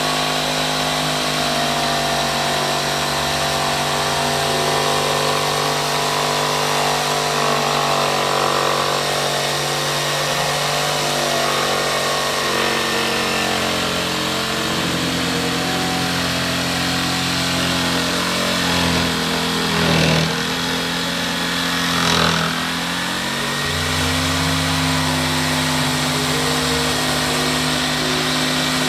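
Handheld electric jigsaw cutting through a thick camphor-wood board, running steadily, with two brief louder surges about two-thirds of the way through.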